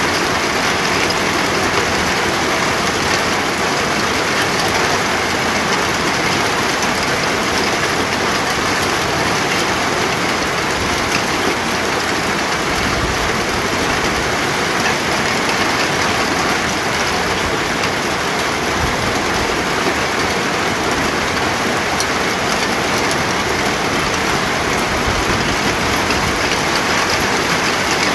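Steady heavy rain falling, an even hiss of rain on surfaces with no let-up.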